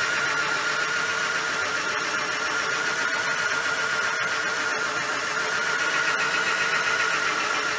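Homemade wooden mini bandsaw running steadily under power, its motor and blade giving a constant whine with a lower hum beneath.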